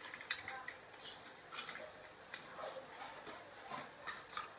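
Scattered light clicks and taps of small plastic toy kitchen pieces being handled and set down, with a few sharper knocks.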